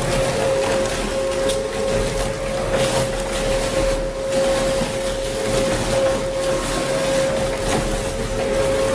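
Twin-shaft industrial shredder tearing up rubber tires: a steady machine whine over continuous grinding and crunching, with a few sharper knocks as the rotor teeth bite.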